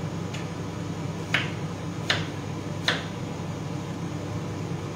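Kitchen knife cutting through sweet potato and knocking on a wooden cutting board: four sharp knocks in the first three seconds, the last three about three-quarters of a second apart.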